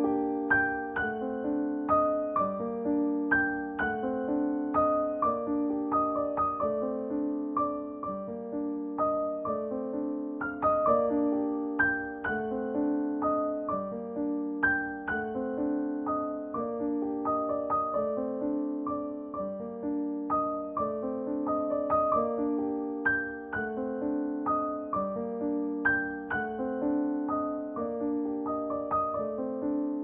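Background piano music: an even, repeating figure of notes cycling about every two seconds.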